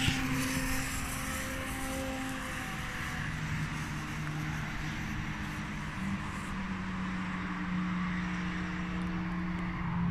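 A firecracker goes off with a sharp crack right at the start, its noise dying away over about two seconds. Under it runs a steady low engine drone.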